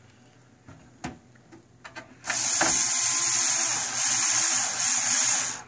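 Power screwdriver running for about three seconds, driving a power-supply mounting screw into the computer case, after a few light clicks.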